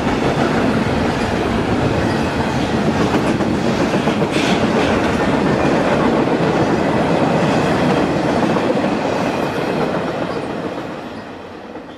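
Cars of an intermodal freight train, double-stack containers and trailers on flatcars, rolling past with a steady rumble and the clickety-clack of wheels over the rail joints. There is a brief, sharper high-pitched noise about four seconds in, and the sound fades away near the end.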